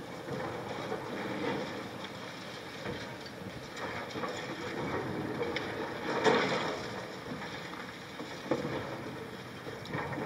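High-reach demolition excavator's hydraulic crusher jaws breaking up a concrete tower, with broken concrete chunks falling and crashing down over a steady machine rumble. The loudest crash comes about six seconds in, and a sharp knock follows about two seconds later.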